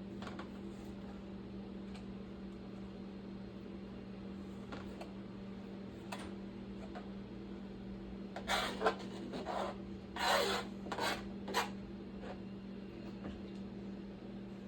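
Kitchen knife cutting hot dogs on a cutting board: a few faint cuts, then a cluster of short scraping strokes about two-thirds of the way through, over a steady low hum.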